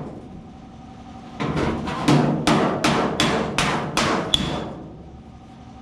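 Hammer-on-dolly panel beating on the steel front quarter panel of a Ford Falcon XB GS: a hand dolly is held behind the welded repair while a panel hammer strikes it about ten times in quick succession, a couple of blows ringing briefly. The blows begin about a second and a half in and stop near the end. The metal is being worked to straighten the welded seam.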